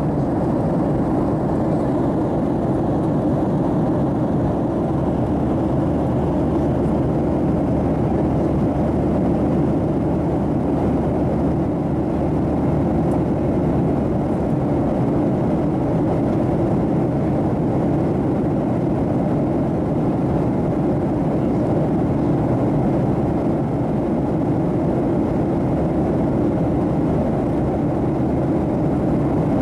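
Steady cabin drone inside a Boeing 737-700 in flight: a constant low rush of air and CFM56-7B engine noise that holds at one level throughout.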